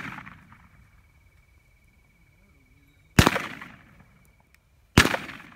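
Two shotgun shots about two seconds apart, each with a trailing echo, fired at passing doves; the first moment carries the fading echo of a quick volley fired just before.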